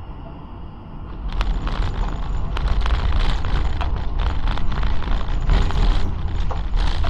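Tram running along the rails: a steady low rumble, then from about a second in a loud, dense clatter of wheel clicks and knocks over the track.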